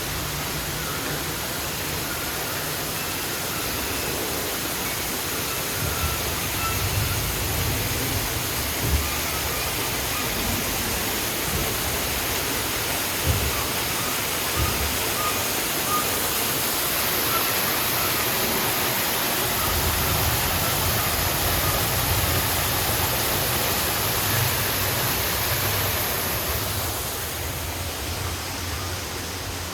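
Steady rushing hiss of falling water, with some low rumbling underneath, in the boat ride's rainforest scene.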